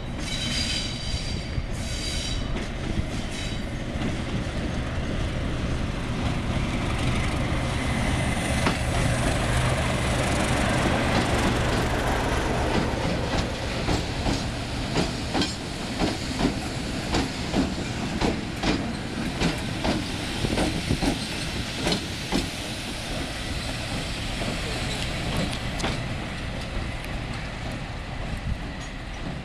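Slow-moving diesel train of a Class 37 locomotive with its English Electric V12 engine, hauling four Class 20 locomotives past the platform. A low engine rumble builds as the locomotives draw past, then the wheels click over the rail joints at about one and a half clicks a second as the Class 20s roll by.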